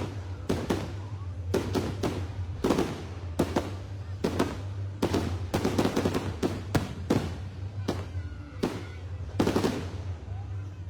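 Aerial fireworks bursting in quick, irregular succession: about twenty sharp booms in eleven seconds, each followed by a short echo. A steady low hum runs underneath.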